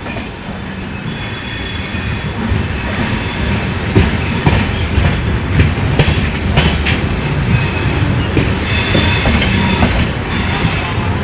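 Moving passenger train: a steady rumble of wheels on the rails, with irregular sharp clacks as the wheels cross rail joints, clustered in the middle.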